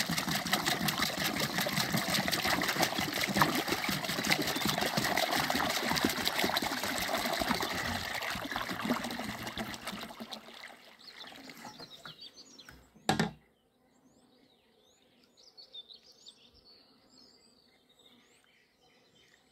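Water poured from a plastic canister into a plastic basin: a steady splashing stream that thins out about ten seconds in and stops. A single thump follows about thirteen seconds in, then faint bird chirps.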